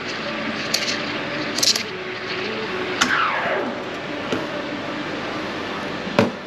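Espresso machine steam wand hissing as it steams milk in a stainless steel jug, with a tone that slides down in pitch about three seconds in. A few light clinks, and a sharp knock near the end.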